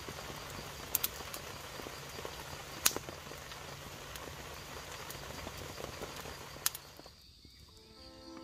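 Wood campfire burning with a steady hiss and scattered crackles, three of them sharp, loud pops. The fire sound drops away about seven seconds in.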